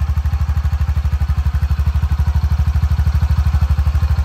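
Honda Pioneer 700's 675 cc single-cylinder, fuel-injected engine idling, heard close behind at the muffler: a steady low putter of about a dozen exhaust pulses a second.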